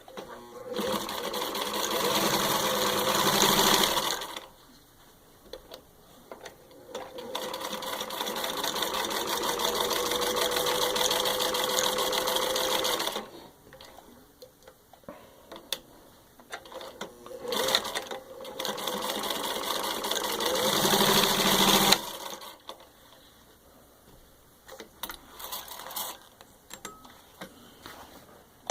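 1949 Singer 15-91 sewing machine, freshly rewired with a rebuilt motor, stitching through four layers of thin leather in three runs of a few seconds each. Each run gets louder as the machine picks up speed. Light clicks and handling noises fill the pauses between runs.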